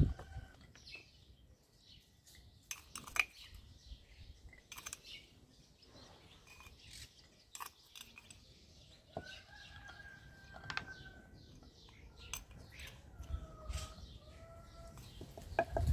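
Faint, scattered clicks and taps of a spoon and small clay pots being handled as ingredients are spooned in. A few short bird chirps sound in the background.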